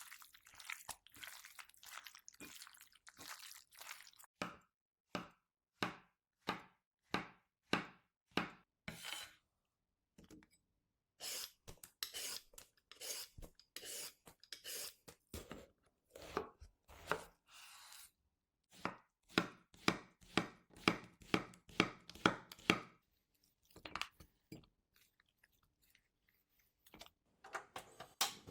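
Kitchen knife chopping food on a cutting board, in runs of regular strokes broken by a few short pauses.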